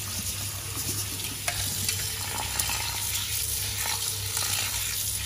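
Tap water pouring onto rice in a stainless steel mesh strainer, a steady hiss, while a hand stirs and rubs the wet grains, adding a few small clicks.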